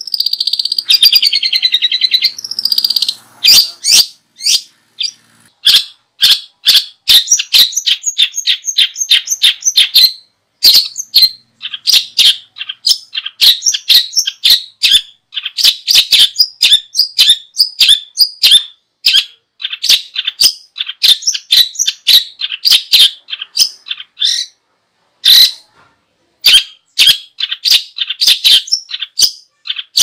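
Small songbird singing: a warbling trill for the first few seconds, then a fast run of short, sharp, high-pitched chirps, several a second, broken by a brief pause near the end.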